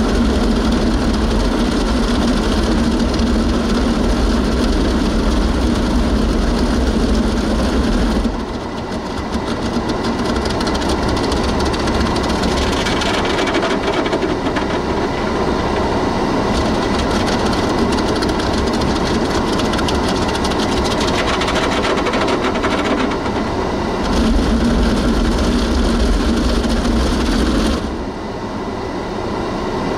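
Automatic car wash machine working over the car, heard from inside the cabin: a loud, steady wash noise. A heavier low rumble runs for the first eight seconds, drops off, and returns for a few seconds later on.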